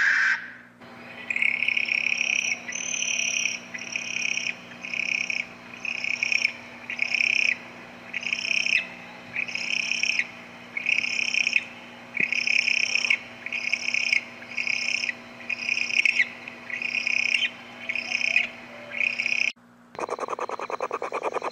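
An owl giving short, raspy screeching calls over and over, about one a second. A different, noisier sound starts abruptly near the end.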